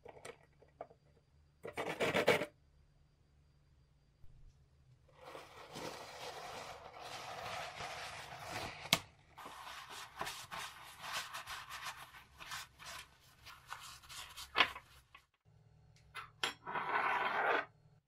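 A paper towel rubbing and scraping over a small knurled metal lighter part as it is wiped dry by hand, continuous for several seconds with scattered clicks and a couple of sharp knocks. A few brief knocks and a short scraping burst come before it, and another short burst near the end.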